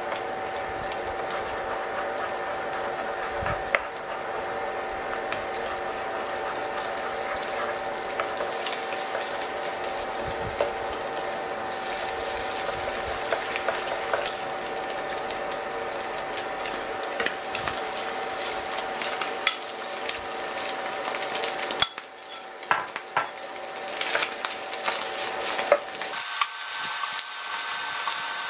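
Egg, bacon and vegetables sizzling in a nonstick frying pan while a wooden spatula stirs and scrapes, knocking against the pan now and then. A steady whine runs underneath and shifts higher near the end, and there is a flurry of knocks about three quarters of the way through.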